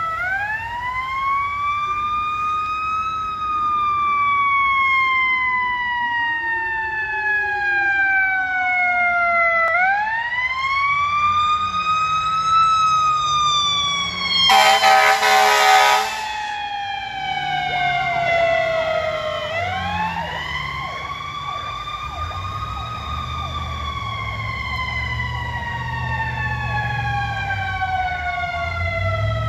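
Ambulance emergency sirens on a call. A siren wails in long cycles of about ten seconds, rising quickly and then falling slowly. About halfway an air horn blasts for a second and a half. From just after that, a deep low rumble from a Rumbler low-frequency siren runs under the wail.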